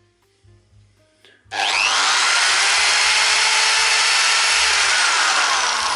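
Ferrex 610 W corded hammer drill running free, with nothing in its keyless chuck, on its lowest speed setting. It starts suddenly about a second and a half in, spins up, runs steadily, and begins to wind down near the end.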